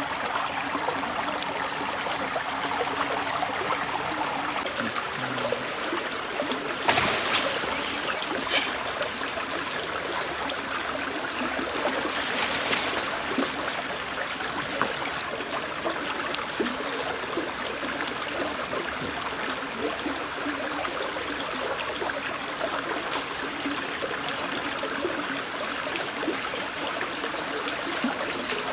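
Stream water running steadily. It swells briefly louder about seven seconds in and again around twelve seconds in.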